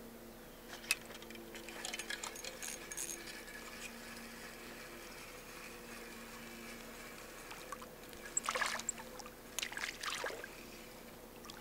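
A hooked bluegill splashing at the lake surface in two short bursts near the end as it is reeled to the boat. Before that, a few light clicks and rattles of the rod and reel.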